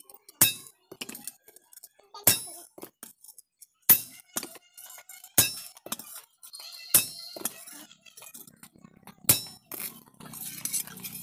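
Hammer blows on a steel tool held with tongs against a steel spade blade on an anvil. There are six sharp, ringing metal strikes about one and a half seconds apart, with a longer gap before the last, and lighter clinks in between.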